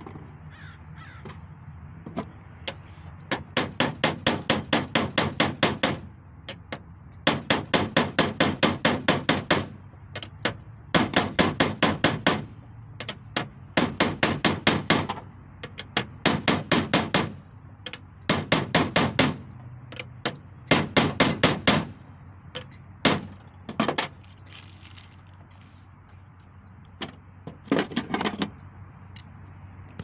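Steel hammer rapping on a socket set over a new U-joint bearing cap, driving the cap into the driveshaft yoke, metal ringing on metal. The blows come in quick runs of several taps a second, each run lasting two to three seconds, then a few single blows near the end.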